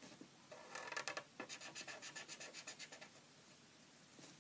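Felt-tip pen scratching on paper as a poster is coloured in, with quick back-and-forth strokes of about five a second that stop about three seconds in. The sound is faint.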